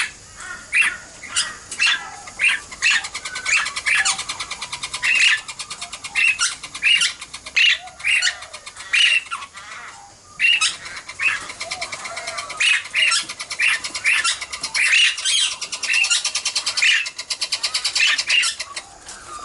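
Princess parrots calling: a steady run of short, sharp squawks, several a second, over a continuous fast chattering.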